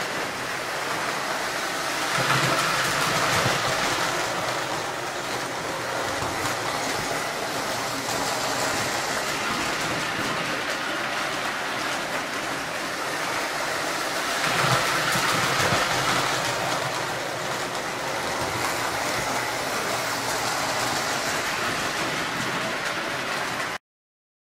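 Lionel postwar O-gauge toy train running on three-rail metal track, a steady clatter of wheels with motor whir. It grows louder twice as it passes close, about twelve seconds apart, and cuts off suddenly near the end.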